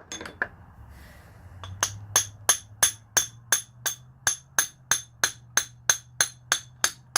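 Hammer tapping out the differential cross pin, metal on metal: a steady run of sharp, ringing strikes, about three a second, starting about two seconds in.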